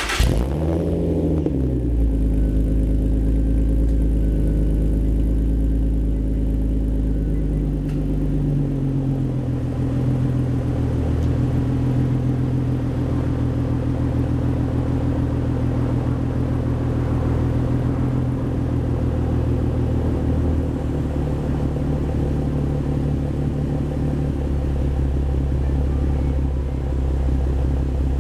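2005 Infiniti G35's 3.5-litre VQ V6 with a Motordyne Shockwave exhaust and ART pipes, just started: the revs flare up and fall back in the first two seconds, then it settles into a steady idle, which drops a little about nine seconds in.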